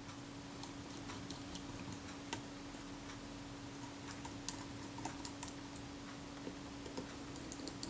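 Faint, irregular small clicks and ticks of a screwdriver running small screws down into a camera's focus mount, with a steady low hum underneath.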